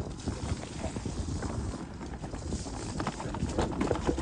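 Mountain bike clattering and knocking over a rough, wet trail, with many irregular knocks that grow louder near the end, over a low rumble of wind on the microphone.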